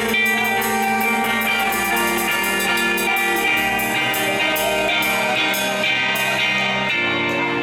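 Live rock band playing an instrumental passage: amplified electric guitars over a Ludwig drum kit, with steady, evenly spaced cymbal strokes keeping time.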